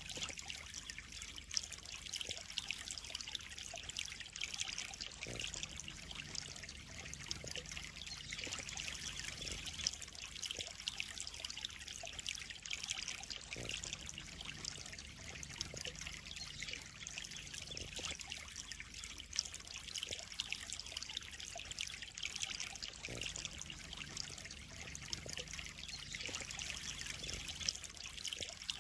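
Water trickling and splashing steadily into a koi pond, an even stream of fine splashing with a sharper splash now and then.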